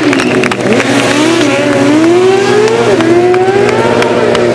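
Motorcycle engines during a stunt show: one engine revving up and down in repeated rising and falling sweeps, over another running steadily at low revs.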